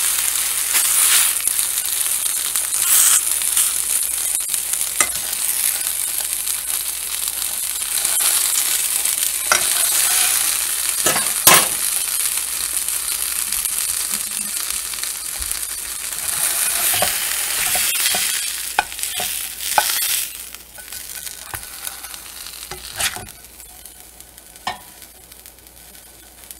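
A burger sizzling as it reheats in a nonstick frying pan, with a utensil clicking and scraping against the pan now and then. The sizzle fades away near the end as the burger is lifted out.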